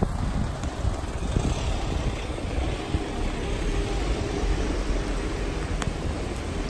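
Rainy city street ambience: a steady low rumble under an even hiss from the wet street, with a faint steady hum through the middle and one sharp tick near the end.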